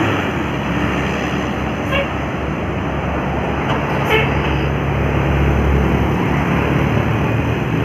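Roadside traffic passing, with two short horn toots about two and four seconds in. Low engine noise grows louder after about five seconds as a heavy vehicle goes by.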